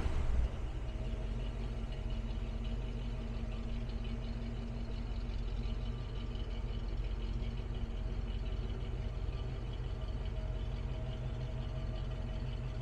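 1966 Oldsmobile 98's 425 V8 idling steadily at the tailpipe. A louder surge dies away about half a second in.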